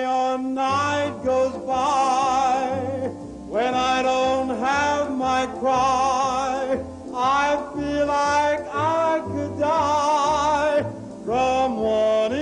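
Background music: a melody line with a strong wavering vibrato over a bass line that steps between notes about twice a second.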